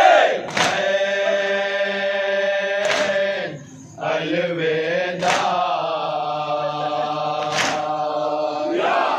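A group of men chanting a noha in unison, in long held lines. A sharp unison strike of matam chest-beating falls about every two and a half seconds, four times. The chant breaks off briefly about three and a half seconds in.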